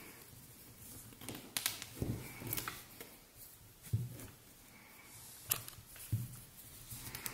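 Hands handling a crochet bag and metal crochet hook: scattered soft rustles of cotton cord, with a few light clicks and knocks.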